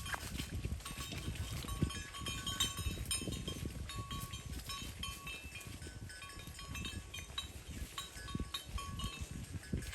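Bells on grazing cattle clanking irregularly, many short dings, over a steady low rustling.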